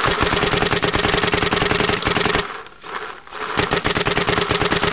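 Smart Parts Ion electropneumatic paintball marker firing a rapid string of shots, one sharp crack after another. Firing stops for about a second partway through, then a second fast string follows.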